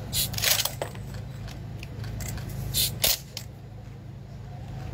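Soldiers' rifle drill by the firing party: a few short clacks and rattles as the rifles are handled in unison, near the start and again about three seconds in, over a steady low hum.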